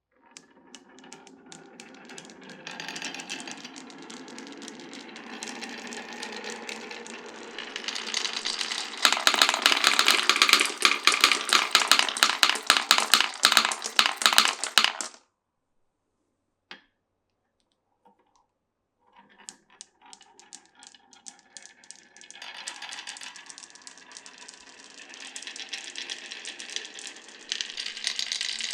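Glass marbles rolling down a wooden marble run: a low rolling rumble that builds into dense, rapid clicking and clattering, then stops suddenly about halfway through. After a lone click and a short pause, marbles start rolling and clattering along the wooden track again.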